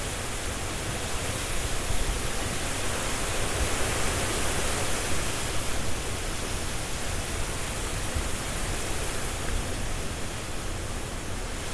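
Strong wind rushing through trees with leaves rustling, a steady roar with a deep rumble underneath and a bright hiss on top, swelling a little a few seconds in and easing slightly near the end.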